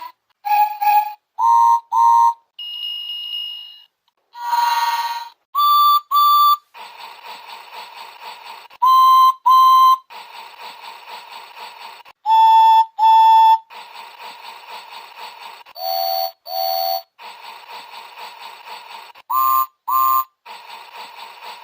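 Electronic sound effects from a Thomas the Tank Engine toy railway track's speaker: short double whistle toots at several different pitches, one longer single whistle, and a hissing burst about five seconds in. Between the toots run stretches of rhythmic steam-engine chuffing.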